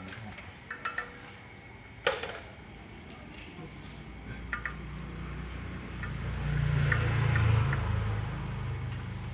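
Small clicks and one sharp knock about two seconds in as a CCTV camera and its parts are handled. A low rumble builds through the second half and eases near the end.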